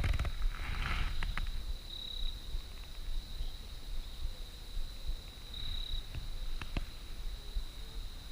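An insect's steady high-pitched trill, swelling a little every few seconds, with a few light clicks and low rumble.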